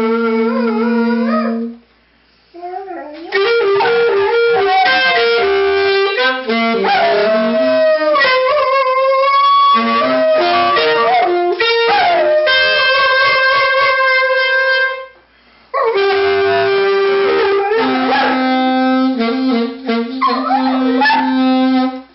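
A saxophone playing a slow melody of held notes while a golden retriever howls along, its drawn-out howls gliding up and down in pitch over the notes. The sound breaks off briefly about two seconds in and again about fifteen seconds in.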